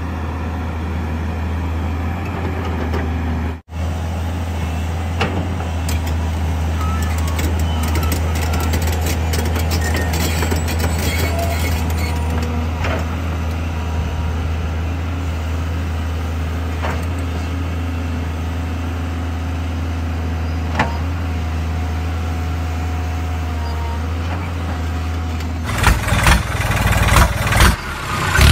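Steady, even engine-like hum from a radio-controlled construction machine, with scattered small clicks. It drops out for an instant a few seconds in, and near the end there is a burst of clattering knocks.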